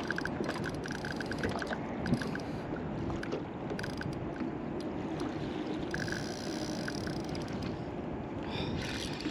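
Fishing reel being wound in while playing a fish, giving a run of light, quick clicks at about five a second, over steady wind and water noise.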